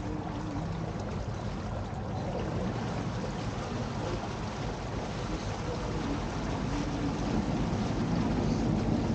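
A boat's motor running steadily with water churning in its wake, a low hum under the wash of the water, growing a little louder near the end.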